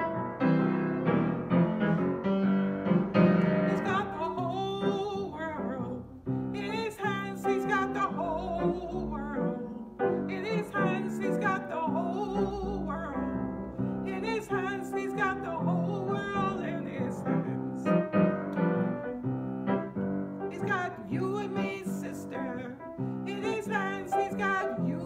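Piano playing alone at first, then about four seconds in a woman's solo voice begins singing over the piano accompaniment, her held notes wavering in a vibrato.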